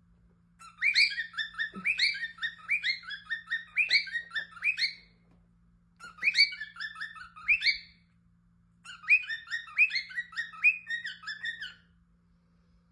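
Pet bird chirping in three rapid bouts of repeated rising notes, each a few seconds long, with short pauses between them.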